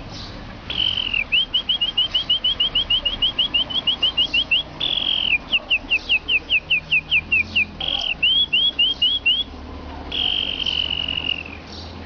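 A man whistling through pursed lips in imitation of a bird's song. There are three phrases, each a long falling note followed by a quick run of short downward-slurred notes at about five a second, and it ends with one long held note that slowly falls.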